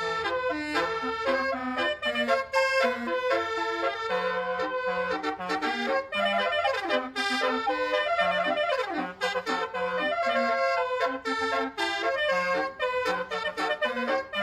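Bus basuri telolet horn playing a melody: a run of reedy, trumpet-like notes that change pitch several times a second, with a few sliding falls.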